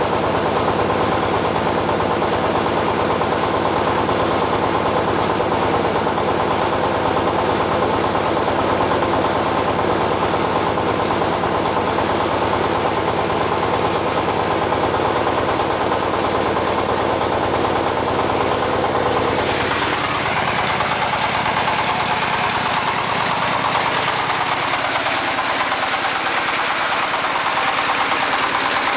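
Changfa diesel generator set running steadily at constant speed. About twenty seconds in the sound turns brighter and closer as the microphone moves up beside the engine.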